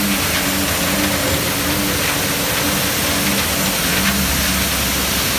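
Johnston ES351 mechanical street sweeper at work, its engine running while the gutter brooms sweep up rocks. A steady hiss runs under a low hum that pulses about twice a second.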